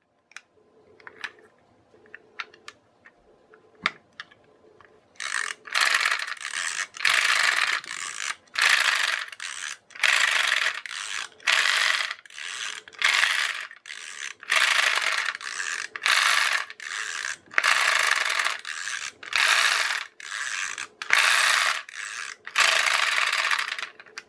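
Pull-cord clockwork mechanism of a plastic turtle bath toy running, its gears driving the flippers and paddle wheels, in a series of short ratcheting whirrs about one a second. A few light plastic clicks come first, and the whirring starts about five seconds in.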